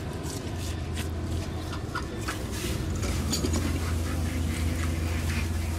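Knife cutting through raw swordfish loin: scattered small wet clicks and squelches as the blade works through the flesh, over a steady low hum.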